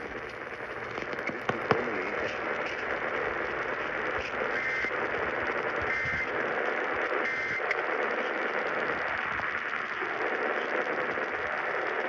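Hiss and crackle of AM radio static from the speaker of a Sangean weather alert radio tuned to 1120 kHz, with no programme coming through. A couple of clicks come about a second and a half in, and three short high beeps sound about a second and a half apart in the middle.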